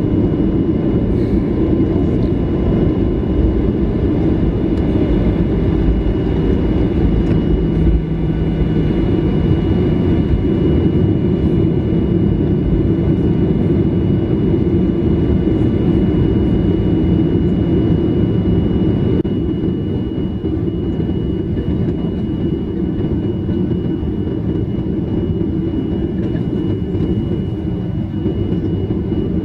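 Cabin noise inside a Boeing 737-800 in flight or on the runway: a loud, steady rumble from the CFM56 engines and airflow, with a faint steady whine above it. The rumble eases slightly about two-thirds of the way through.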